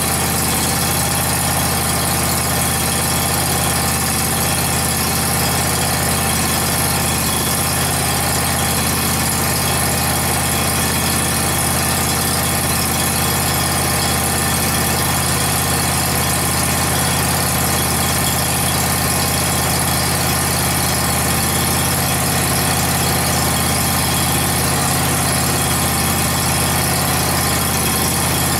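Scag Tiger Cat zero-turn mower's engine running steadily at medium throttle while the hydrostatic drive is worked back and forth with the wheels off the ground, bleeding air from the freshly refilled hydraulic system.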